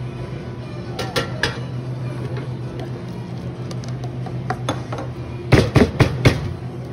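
Espresso machine humming steadily while a barista handles cups and a stainless-steel milk jug on the drip tray. A few light clinks come about a second in, then a quick run of loud metal clanks near the end.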